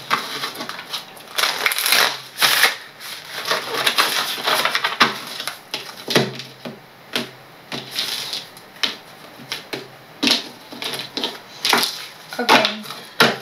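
A deck of oracle cards being shuffled by hand: a quick, irregular run of papery rustles and sharp little slaps as the cards are pushed through each other.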